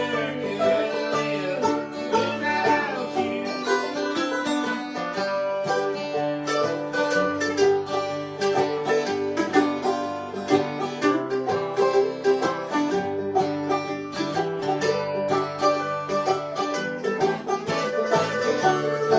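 Bluegrass string band playing an instrumental passage: fast picked notes over steady lower notes.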